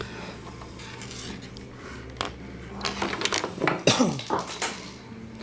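Light metallic clinks and taps from a vintage electric wall clock being handled, over a low steady hum.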